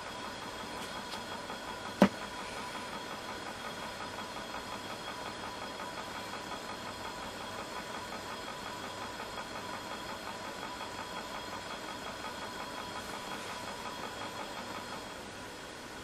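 Steady mechanical running noise with faint, even tones, broken by one sharp click about two seconds in. It drops a little near the end.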